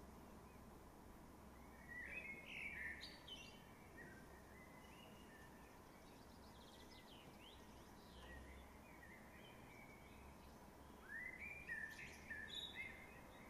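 Faint Eurasian blackbird song: a warbling phrase about two seconds in, a softer one mid-way, and another near the end, over a steady low background hiss.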